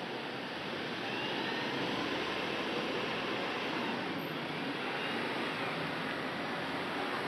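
City street ambience at night: a steady wash of traffic noise from passing vehicles, swelling slightly about a second in.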